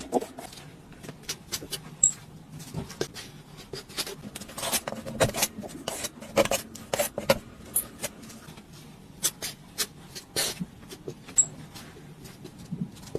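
Steel drywall taping knife scraping and slapping joint compound on a wall: irregular short strokes and taps, with a few louder clusters of scrapes.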